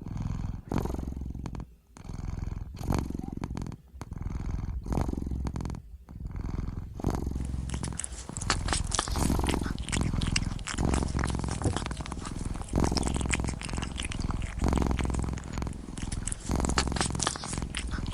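Kitten purring close to the microphone: a low rumble that swells and fades about once a second with each breath for the first seven seconds, then runs on more continuously with a crackly hiss over it.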